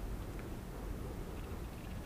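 Faint steady background hiss with a low hum: room tone, with no clear handling sounds from the controller housing.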